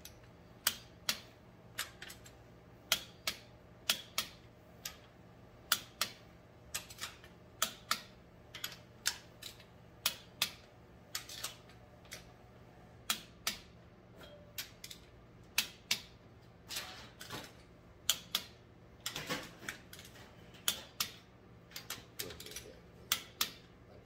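Click-type torque wrench clicking as it reaches its set torque on cylinder head bolts of an Allis-Chalmers tractor engine, bolt after bolt. Sharp single clicks at a steady pace, often two close together.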